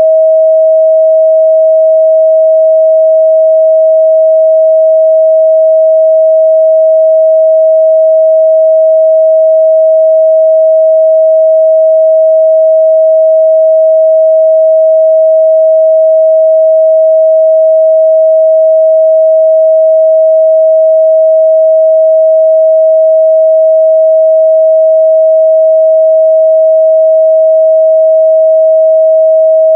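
Steady 638 Hz sine-wave test tone: one pure, unchanging mid-range pitch held at a constant loud level.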